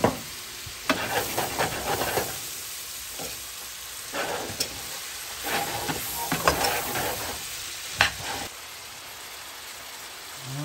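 Onions and seasoning frying in bacon fat in a pan, sizzling steadily, while a spoon stirs and scrapes the pan in several short bursts, the sharpest about eight seconds in.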